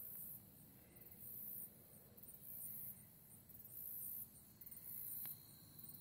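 Katydids (bush crickets) singing faintly, a very high-pitched rasping call repeating in pulses about once a second.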